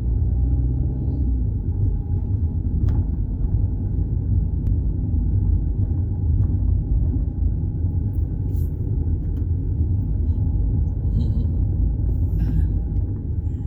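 Steady low rumble of a car driving at low town speed, engine and tyre noise heard from inside the cabin.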